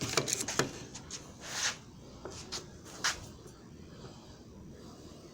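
Handling noises: scattered clicks and knocks with a brief rustle, mostly in the first three seconds, then quiet background.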